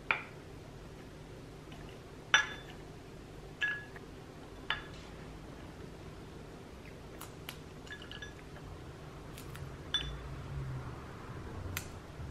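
Several sharp glass clinks, each with a short ring, the loudest a little over two seconds in: a spoon and nuts knocking against small glass tumblers and glass jars as yogurt cups are filled. Fainter ticks and handling sounds follow.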